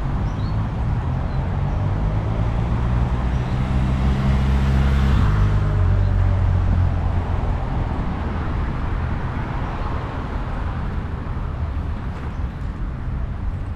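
Motor traffic passing on the road: a vehicle's engine hum is strongest over the first half and drops in pitch about five seconds in, then fades into steady road noise.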